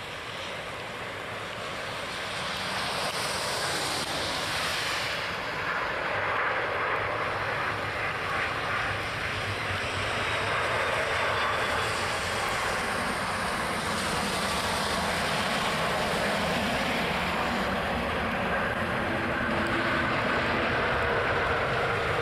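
Airbus A330 jet airliner landing on a wet runway: the steady rush of its jet engines grows louder over the first few seconds and then holds, with a faint falling whine about four seconds in.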